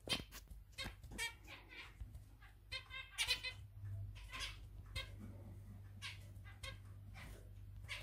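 Zebra finches calling: many short, pitched calls repeated at irregular intervals, busiest about three seconds in, over a faint low steady hum.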